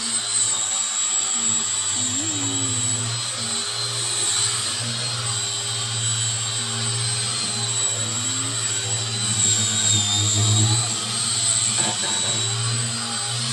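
Electric power tool running steadily with a high whine over a low hum.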